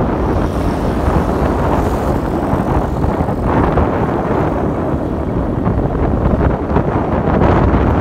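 Wind rushing over the microphone of a moving vehicle, with steady engine and road noise underneath.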